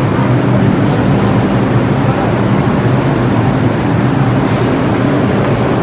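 Subway train standing at the station platform with its doors open: a loud, steady hum from the train's equipment over the noise of the station. A short hiss about four and a half seconds in.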